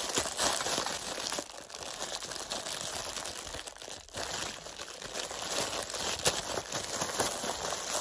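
Clear plastic bag crinkling continuously, with irregular crackles, as hands unwrap it from a small cardboard box.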